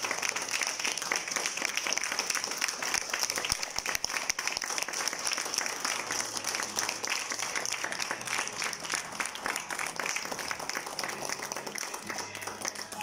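A theatre audience applauding, a steady dense clapping that fades a little near the end.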